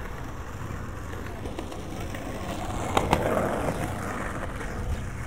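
Street sounds with a steady low hum, two sharp clacks about three seconds in, then a brief swell of rolling noise that fades.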